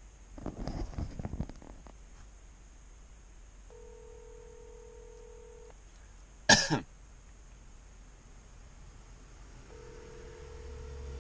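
Cell phone on speaker playing the ringback tone of an outgoing call: a steady ring about two seconds long, heard twice, with about four seconds between rings. A man coughs and clears his throat near the start, and a single sharp, loud noise comes about halfway through.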